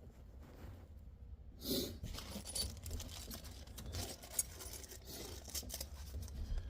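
Small metal parts and hardware being handled, with light clinks and rattles, as a steering-column turn-signal switch and its screws are worked into place by hand; a louder rustle comes about two seconds in.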